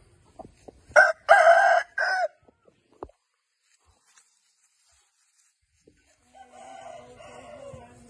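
A rooster crowing once, loud and lasting just over a second, about a second in: a short opening note, a long held middle note and a short closing note. Fainter, lower rooster calls start near the end.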